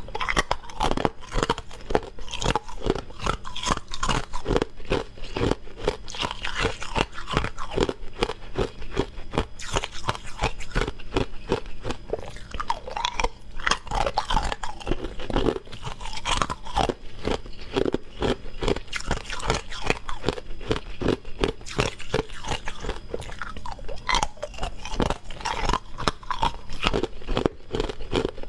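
Close-miked crunching and chewing of hard frozen ice cubes, a dense run of crackling bites one after another.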